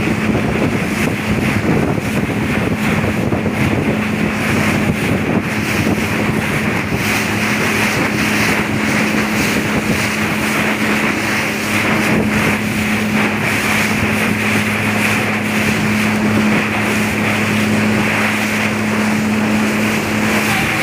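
Speedboat under way, its engine droning at a steady pitch beneath the constant rush of water and wind on the microphone, with spray splashing over the boat partway through.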